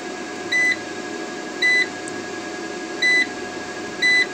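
Four short, high-pitched beeps about a second apart from the MPP Solar PIP1012MSE inverter's front-panel keypad, one for each press of its button as the display steps from page to page. A steady hum and a thin high whine run underneath.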